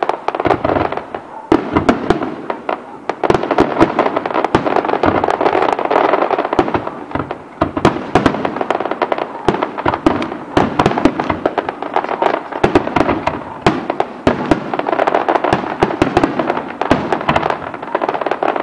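Aerial fireworks display: a rapid, continuous barrage of shell bursts and crackling. There are brief lulls about two seconds in and again near eight seconds.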